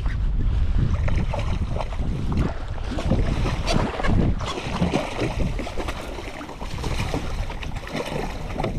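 Wind rumbling on the microphone over water splashing against a kayak, as a hooked lake trout thrashes at the surface and is scooped into a landing net.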